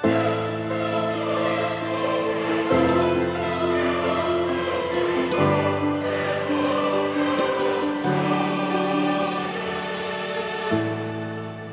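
Background music: a slow choral piece of sustained chords that change about every two and a half seconds.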